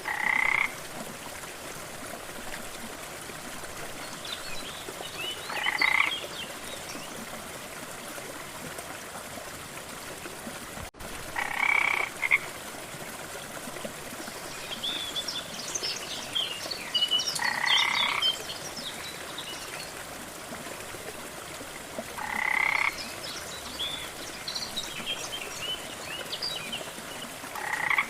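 A frog croaking at a steady pace, one short call of about half a second every five to six seconds, six calls in all, over the steady rush of a waterfall. Scattered high chirps come in around the middle and later.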